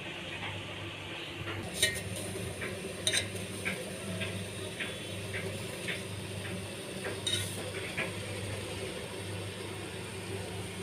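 A utensil clinking and scraping against a metal pot as noodles are stirred and lifted from boiling water, with sharper clinks about two, three and seven seconds in. A steady low hum runs underneath.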